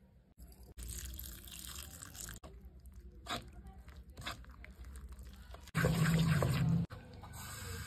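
A spoon mixing a wet, crumbly mixture in a bowl: soft squelching and scraping with a few light clicks, then a louder stretch of stirring about six seconds in.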